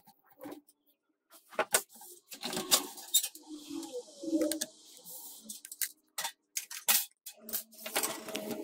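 Scattered clicks, taps and light clatter of metal and plastic computer-case parts being handled and unscrewed, with a short scraping hiss in the middle. Music comes in near the end.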